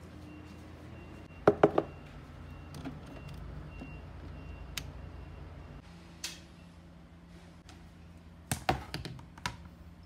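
Plastic containers being handled: sharp knocks and clicks, three in quick succession about a second and a half in, single ones later, and another quick cluster near the end.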